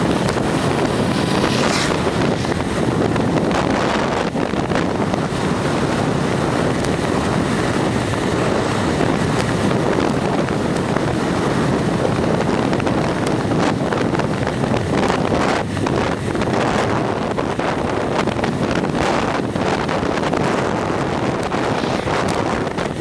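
Steady, loud wind noise buffeting the microphone of a camera moving along the road. About two seconds in there is a brief louder rush as an oncoming tractor passes.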